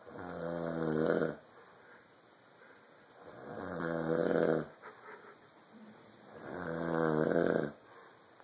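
A man snoring on his in-breaths: three loud snores about three seconds apart, each swelling over about a second and a half and then stopping abruptly.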